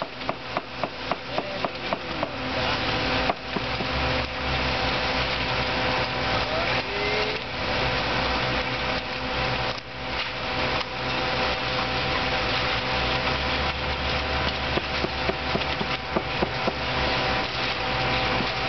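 Engine-driven construction machinery running steadily with a whine, and a rapid rattling tick of about five strikes a second in the first few seconds and again near the end.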